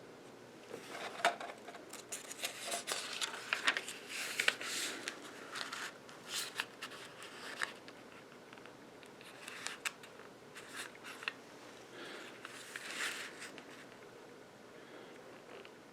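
Handling noises: irregular light clicks and short rustling bursts in a small room, in two spells with a pause in between.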